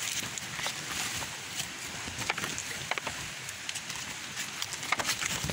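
Footsteps pushing through forest undergrowth: dry leaves crunching and twigs snapping in scattered sharp cracks, over a steady hiss.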